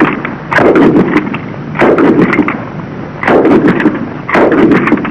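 Belt-fed machine gun firing short bursts of automatic fire, one about every second and a half, each a quick run of several sharp cracks.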